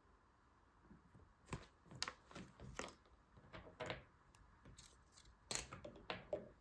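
Hands handling a glossy paper toy leaflet and small plastic toy pieces on a tabletop: irregular paper rustles and crinkles mixed with light clicks of plastic parts, from about a second in.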